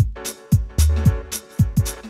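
Background music with a steady drum beat, bass and held chords.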